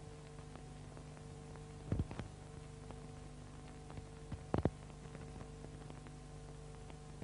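Faint steady hum of an old film soundtrack, with a few sharp clicks about two seconds in and again about four and a half seconds in.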